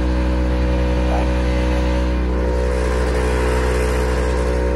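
Kioti tractor's diesel engine idling steadily.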